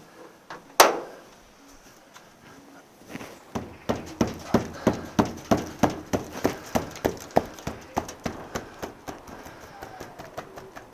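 One sharp knock about a second in, then a run of rapid knocks, about four a second, that fades out near the end, from striking the windshield fittings of a 1941 Ford pickup to work them loose.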